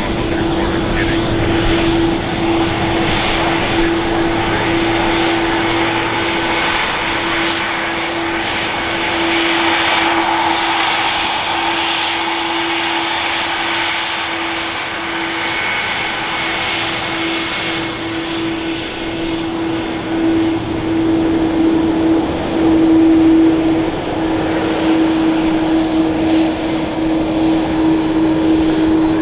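Airbus A330-300 jet airliner taxiing, its engines running at low power: a steady drone with a high whine over a rushing hum, swelling briefly about three-quarters of the way through.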